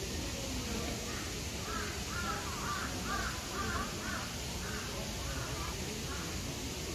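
A crow cawing in a run of about a dozen calls, two or three a second, growing fainter near the end.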